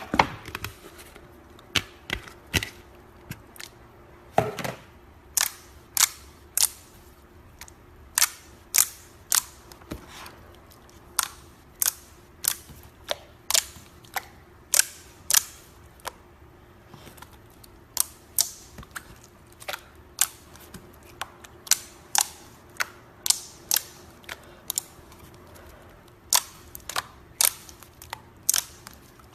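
Slime being squeezed and poked, giving sharp popping clicks as trapped air pockets burst, irregularly about one or two a second.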